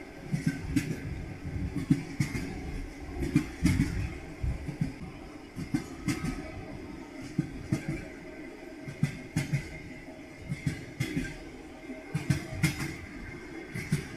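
Railway carriage wheels clacking over rail joints, sharp knocks often in quick pairs every second or two over a steady low rumble of the moving train.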